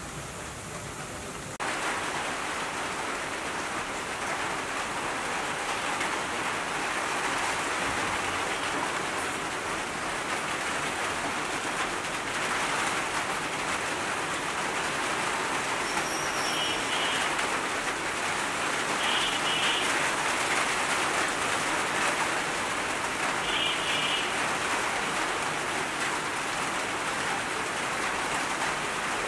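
Steady rain falling on garden foliage. It gets louder about two seconds in and then holds steady.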